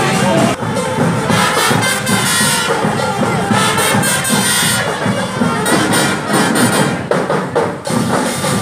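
A parade marching band playing: wind instruments and drums keeping a steady march beat, over crowd noise.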